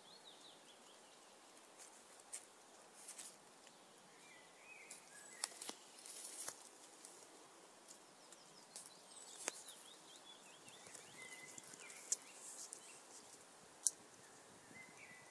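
Quiet woodland ambience with faint birdsong: short chirps and trills now and then. A few sharp clicks stand out, the clearest about nine and a half, twelve and fourteen seconds in.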